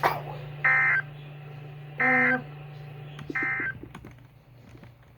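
Three short bursts of Emergency Alert System SAME digital data tones, about a second apart, over a steady low hum. This is the end-of-message (NNNN) code that closes the broadcast warning.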